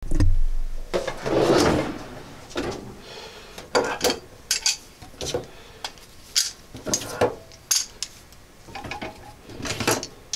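A steel tool chest drawer being pulled open, then metal pliers clinking and clattering against each other and the drawer as they are picked up and handled, in an irregular string of sharp clinks.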